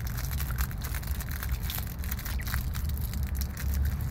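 Crackling and rustling from a phone's microphone being handled and rubbed against clothing, over the steady low rumble of a moving car heard from inside the cabin.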